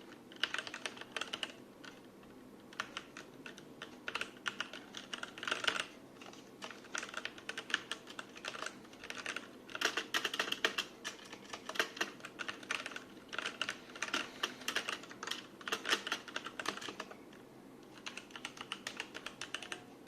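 Typing on a Cosmic Byte CB-GK-11 mechanical keyboard with brown switches: rapid runs of soft clicking keystrokes in bursts, broken by brief pauses.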